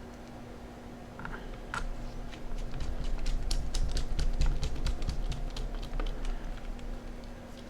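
A quick run of light clicks and rattles from small screws and a screwdriver being handled against the plastic case of a handheld computer, with a low rumble under the busiest part in the middle.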